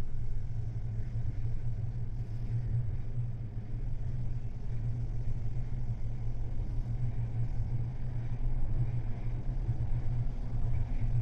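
Merseyrail Class 777 electric train running at speed, heard inside the carriage: a steady low rumble of wheels on rail and running gear.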